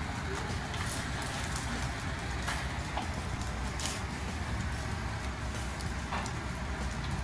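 Abacus beads clicking here and there as several children work their abacuses: short, scattered clicks over a steady low hum of the room.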